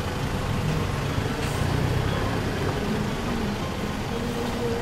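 Steady engine and road noise of a vehicle driving along, heard from on board, with a low engine hum.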